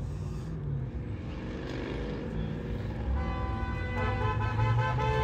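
A car horn sounds from about three seconds in and is held steadily, over a low rumble of car engines.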